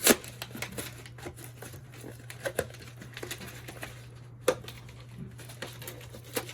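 Scattered clicks, taps and light rustles of a packaged trading-card box being pried and worked open by hand, with a sharper snap near the start and another about four and a half seconds in. A steady low hum runs underneath.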